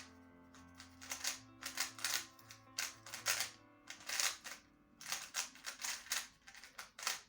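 Plastic layers of a QiYi M Pro 3x3 speedcube being turned: irregular clusters of quick clicking clacks, over soft background music.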